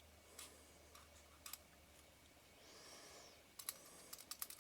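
Faint clicks from handling a Nikon Ai-Nikkor 24mm f/2.8 lens, then a quick run of sharp little clicks about three and a half seconds in, as the aperture ring is turned through its click stops toward f/22.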